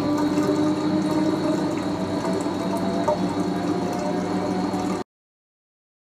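Fisher & Paykel EcoSmart washing machine running with water flowing, a steady hum under it and a tone that slowly rises in pitch. The sound cuts off suddenly about five seconds in.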